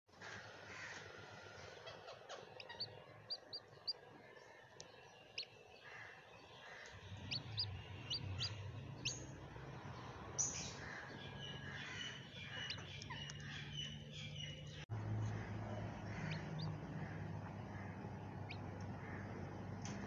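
Faint, high-pitched peeps of chicks hatching under a broody hen: short chirps scattered throughout, busiest a few seconds in. A low steady hum comes in about a third of the way through.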